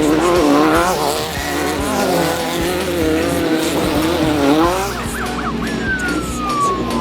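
Off-road race vehicle engine revving, its pitch swinging up and down again and again. From about five seconds in, a run of quick rising whistles and one long falling tone come in.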